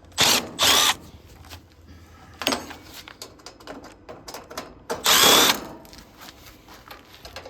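Power drill/driver run in four short bursts, spinning up with a rising whine each time, backing screws out of the top panel of a heat-pump condenser. Small metal clicks and knocks come between the bursts.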